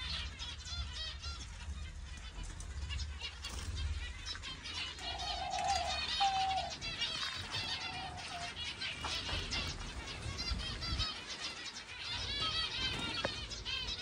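A flock of small aviary finches chirping, many short high calls overlapping without pause. About halfway through, a few longer, lower calls stand out over the chirping.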